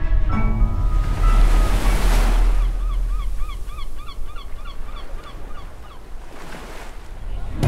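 Sea surf: waves swelling and washing in over a steady low rumble, with a flock of birds calling in quick repeated short cries for about three seconds in the middle.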